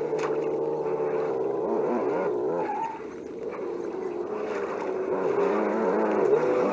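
Simulated engine sounds from sound units on two 1:10-scale RC rock crawlers, a Laegendary Grando and a Danchee Ridgerock fitted with a Dumbo RC sound module, played through their small speakers. One engine note holds steady while another revs up and down a few times as they crawl.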